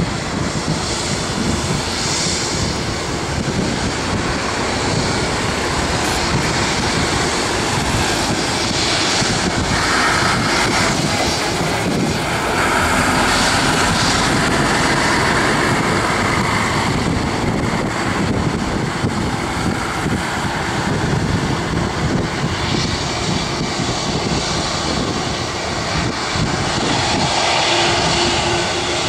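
Boeing 757-200 jet airliner taking off, its twin turbofan engines making a loud, steady rush.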